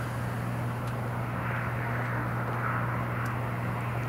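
Bombardier CRJ-900's twin rear-mounted General Electric CF34 turbofans during the landing rollout on the runway, heard from a distance as a steady rushing jet noise with a low hum underneath.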